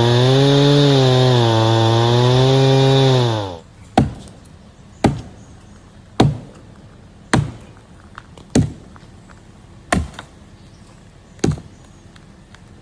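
Chainsaw cutting through a fallen red oak trunk, its pitch wavering under load, then shutting off a little over three seconds in. Seven sharp knocks on wood follow, roughly one every second or so.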